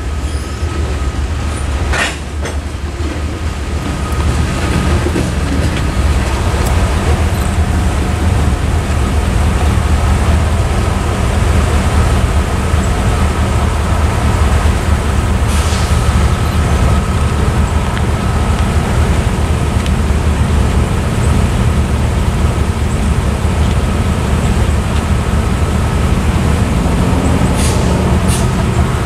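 Railroad crossing's electronic warning bells ringing steadily over a heavy, steady low rumble from the freight train and road traffic, with a single sharp knock about two seconds in.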